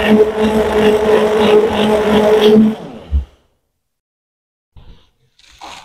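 Electric stirrer motor running with a steady hum while mixing sodium metasilicate into the shampoo batch. It stops about three seconds in, followed by a short knock and a few small clicks near the end.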